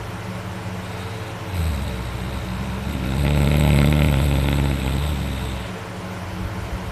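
A man snoring loudly: one long, rough, low snore that starts about a second and a half in, is loudest in the middle and dies away near the end, with quieter breathing on either side.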